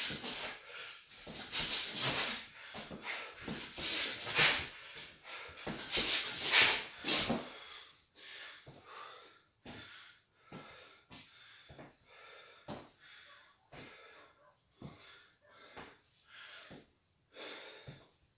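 A boxer's sharp, forceful exhalations, one with each hook, coming in quick bursts for about the first eight seconds; then quieter, regular heavy breaths as he recovers after the combination.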